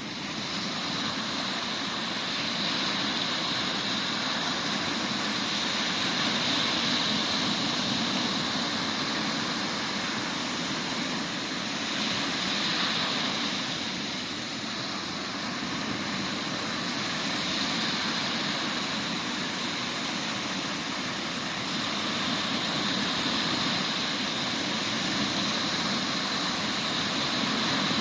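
Mediterranean sea waves breaking in a continuous rushing wash that swells and eases every few seconds, the sea running rough after an intense summer storm.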